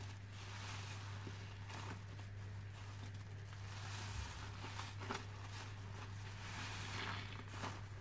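Foam-soaked kitchen sponge squeezed and kneaded by rubber-gloved hands in a basin of thick dish-detergent foam: wet squishing in surges, with small pops and clicks of bursting bubbles. A low steady hum runs underneath.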